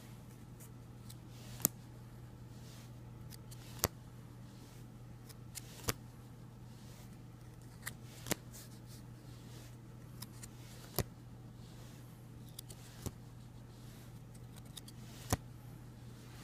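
Trading cards and a plastic card slab being handled: sharp clicks about every two seconds over a steady low hum.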